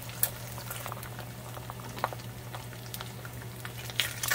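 Eggs frying in a nonstick pan: a steady light sizzle with scattered crackles and pops. About four seconds in, a spatula clicks against the pan as it goes under an egg.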